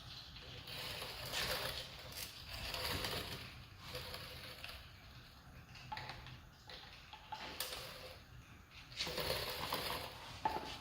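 Irregular mechanical clicking and rattling in uneven bursts, typical of hand tools being worked on the KTM SX 85 dirt bike during its oil change.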